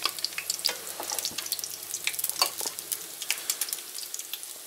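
Meat-filled pancakes frying in oil in an uncovered pan: a steady sizzle with dense crackling.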